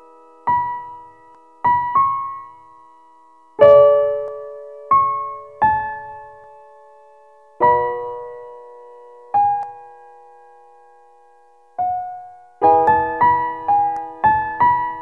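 Slow, sparse piano music: single notes and chords struck one at a time, each left to ring and fade, with a quicker run of notes near the end.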